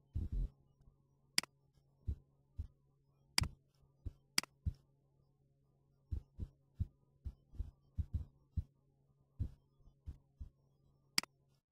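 Computer mouse clicks and keyboard typing. A few sharp clicks come in the first five seconds and one near the end, and a run of keystrokes follows from about six to ten seconds in, over a faint steady hum.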